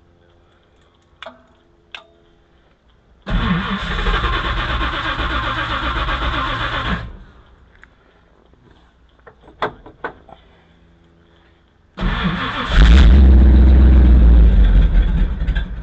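1959 Ford Thunderbird V8 being cranked on the starter twice, each try about four seconds long and cut off sharply, as part of diagnosing a no-start. The second try turns much louder and heavier about a second in. A few light clicks fall between the tries.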